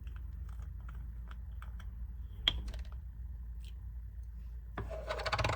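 Small plastic and cardboard makeup packaging being handled: scattered light clicks and taps, one sharper click about halfway through, then a second-long burst of rapid rattling and crinkling near the end.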